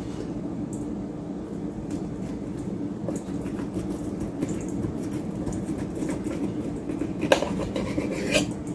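A knife scraping down a roasted corn cob, cutting the kernels off so they drop and click into a stainless steel bowl, with two sharper clicks near the end. A steady low hum runs underneath.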